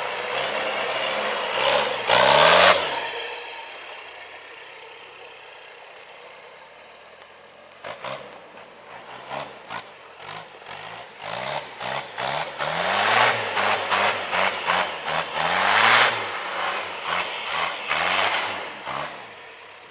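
Off-road 4x4's engine revving hard as it climbs a steep dirt slope. It gives one strong rising rev about two seconds in, eases off, then from about eight seconds it revs again and again in short rising bursts, loudest near the end.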